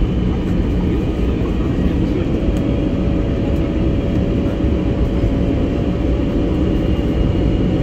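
Steady cabin noise inside an Airbus A320neo descending on approach: loud engine and airflow rumble heard from a window seat. A faint steady hum joins about two and a half seconds in.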